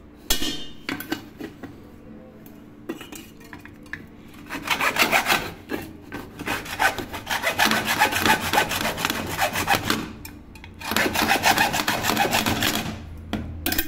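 Small hand saw cutting through a rivet on a thin aluminium pot's handle: rapid back-and-forth strokes in two long runs with a short pause about ten seconds in, after a few scattered knocks as the pot is handled.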